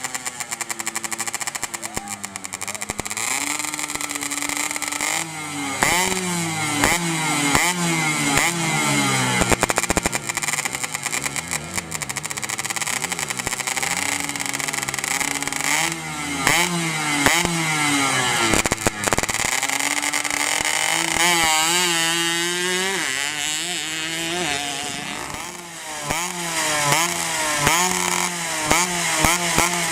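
Underbone grasstrack racing motorcycle engines revved over and over, the pitch climbing and dropping with each blip of the throttle.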